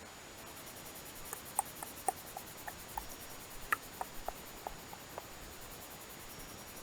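About a dozen light, irregular ticks and taps over a few seconds, over a faint steady hiss.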